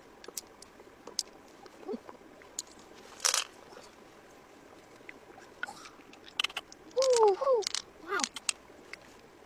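Small clicks and wet squishing as fingers work through the soft flesh of a pearl mussel and handle loose pearls, with a louder wet squelch about three seconds in. Near the end come three short calls, each falling in pitch, louder than the handling.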